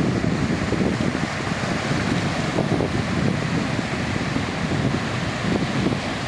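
Sea waves washing onto a beach: steady surf noise with no distinct breaks, with wind rumbling on the microphone.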